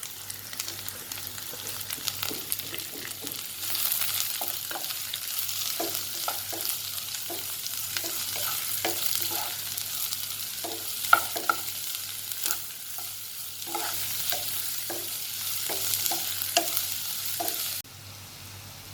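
Chopped onions sizzling in hot oil in a pan while a spoon stirs them, with many short scraping strokes against the pan and one sharp click about halfway through. The sizzle drops away suddenly near the end.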